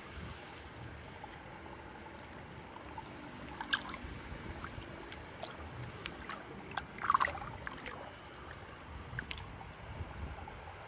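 Low wind rumble on the microphone with small splashes and sloshes of water, as of wading in a flooded rice paddy; a short cluster of sharper splashes about seven seconds in.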